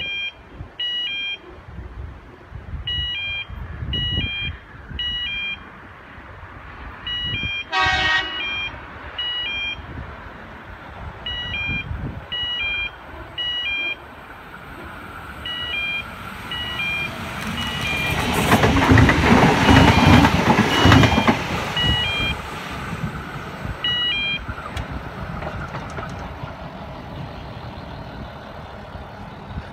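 Level crossing warning bell pulsing roughly once a second while an electric intercity train approaches. The train gives one short horn toot about eight seconds in, then runs past loudest around twenty seconds in, with wheel and motor noise that dies away.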